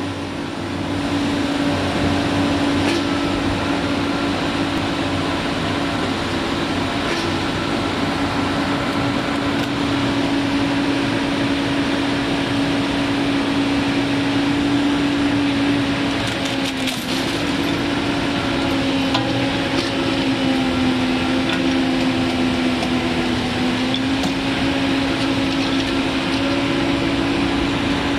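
Diesel engine of a Hyundai Robex crawler excavator running steadily with a strong even hum, its pitch sagging briefly a few times as the hydraulics take load while the boom holds a chained-up metal container; a few faint knocks sound over it.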